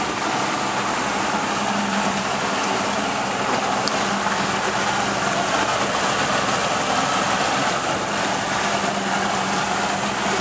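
A boat's motor running steadily: a low even hum under a constant rushing noise.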